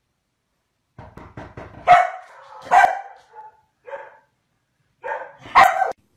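A dog barking: short sharp barks about two seconds in and again just under a second later, a small yip near four seconds and a last bark near the end, after a quick run of ticks.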